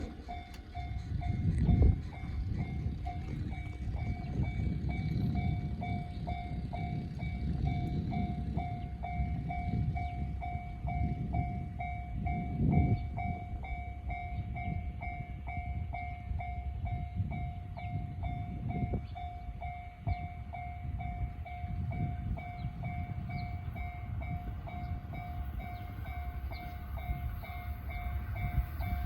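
Japanese railway level-crossing warning bell ringing steadily at about two dings a second, the signal that a train is approaching. A low, uneven rumble runs underneath, swelling briefly about 2 seconds in and again near 13 seconds.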